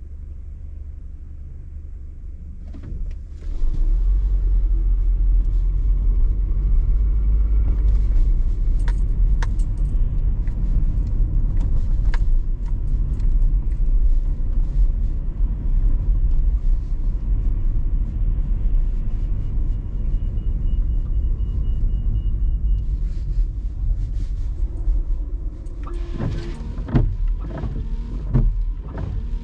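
Car driving, a low rumble of engine and road noise that grows much louder about three and a half seconds in, with scattered clicks and a run of sharp knocks near the end.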